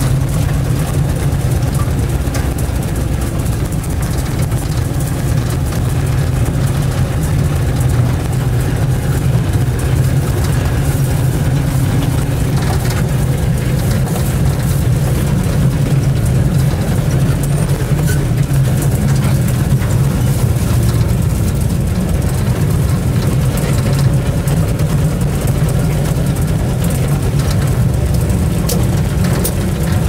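UAZ-469B's four-cylinder petrol engine running steadily under light load, heard from inside the cab as a constant low drone.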